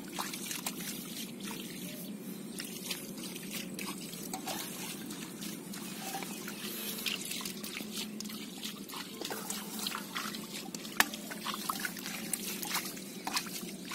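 Muddy water trickling and dripping, with wet splats and squelches as hands and a steel bowl work through shallow mud, over a steady low hum. One sharp knock stands out near the end.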